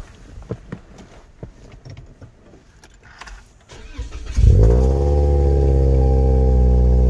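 A few light clicks and knocks, then a car engine, the Toyota Corolla hatchback's 2.0-litre four-cylinder, starts about four seconds in: it cranks, flares up in pitch and settles into a steady idle.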